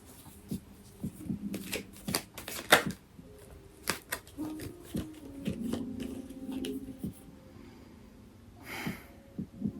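Tarot cards being shuffled by hand: irregular snaps and slaps of the deck.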